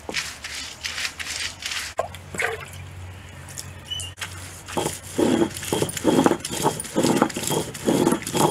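Stone roller of an ammikal grinding stone scraping coconut and spice paste on the stone slab, first in scattered scrapes as the coconut is pushed onto the stone, then from about halfway through in steady back-and-forth grinding strokes about twice a second.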